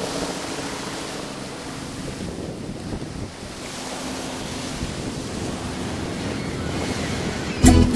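Steady rushing wind and helicopter flight noise heard from inside the cabin, with a faint low hum under it. Music with percussion comes in abruptly near the end.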